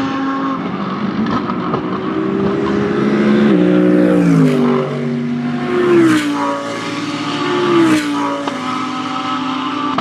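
GT3 race car engines at full throttle, then braking and downshifting for a corner. The engine note climbs, then drops in steps through several gears, with a sharp throttle blip on the downshifts near the middle and toward the end, and settles to a steadier note.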